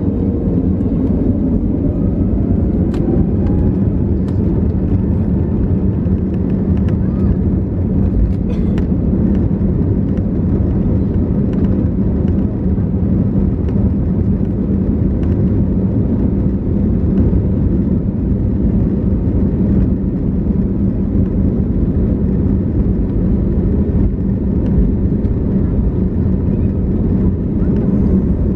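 Airbus A321neo's Pratt & Whitney PW1100G geared turbofan engines heard inside the cabin, spooling up for takeoff. A whine rises in pitch over the first few seconds and then gives way to loud, steady engine and runway noise as the aircraft accelerates, with a few light knocks.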